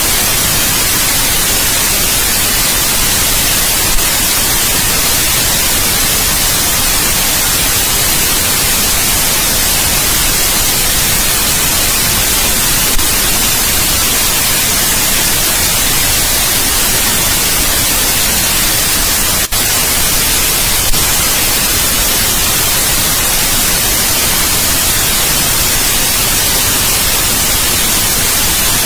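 Steady white noise, an even hiss spread across all pitches and strongest in the high end. A few faint clicks and one brief dip come through about two-thirds in.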